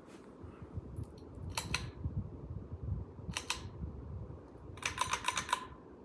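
Ceiling fan pull-chain switch being clicked: a couple of sharp clicks about one and a half seconds in, another pair a little after three seconds, then a quick run of about half a dozen clicks near the end, over a low rumble.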